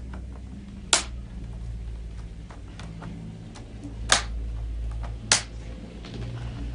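Three loud, sharp snaps, about a second in, just past four seconds and past five seconds, among fainter small clicks and taps over a low steady hum.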